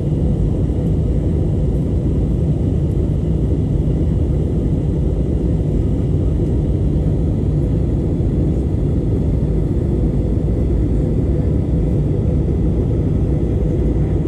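Airplane engine noise: a steady, loud, low rumble with no change in pitch.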